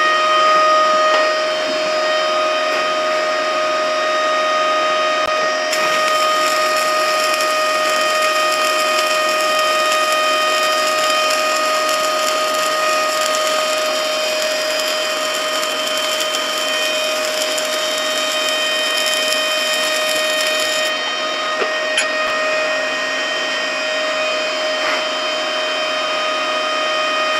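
Stick-welding arc from a 6013 electrode at 45 amps crackling and sizzling steadily while a bead is run, starting about six seconds in and stopping about seven seconds before the end. Under it the inverter welding machine gives a steady whine, with a single click after the arc stops.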